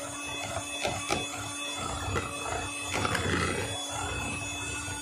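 Electric hand mixer running steadily, its beaters whipping thick cream in a bowl, with occasional sharp knocks as the beaters hit the bowl.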